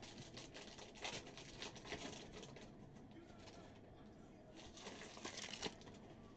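Foil trading-card pack wrapper being torn open and crinkled by hand. There is a spell of soft crackling over the first two and a half seconds, and another brief one past halfway.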